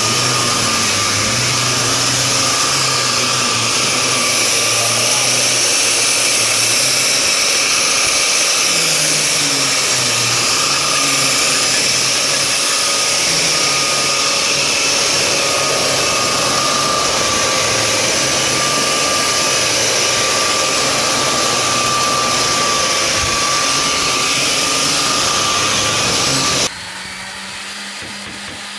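Electric power sander running steadily on wood, a loud whirring motor with a wavering whine. Near the end it cuts off abruptly, leaving a quieter steady hum.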